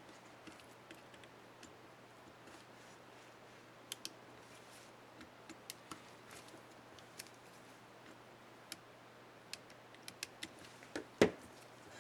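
Small plastic clicks and ticks of an Acer One 725 laptop keycap and its scissor hinge being handled and pressed onto the keyboard, irregular and a few seconds apart. Near the end comes a sharp snap, the loudest sound: the kind a keycap makes clipping into place.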